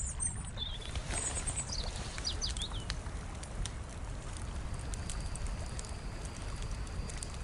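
Outdoor ambience: birds chirping with short high calls and falling notes during the first three seconds, over a steady low rumble. A thin, steady high tone comes in about halfway, with scattered faint ticks.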